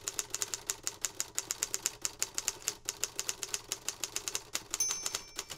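Manual typewriter keys striking in a rapid, even clatter, about six keystrokes a second, with a short bell-like ring near the end.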